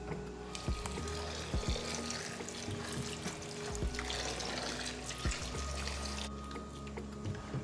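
Kitchen tap running into a metal pot of cassava and corn dough as it is hand-mixed with the water, with background music. The running water stops about six seconds in.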